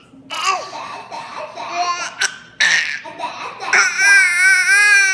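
11-month-old baby laughing in short bursts, then letting out a long, high-pitched squeal about four seconds in.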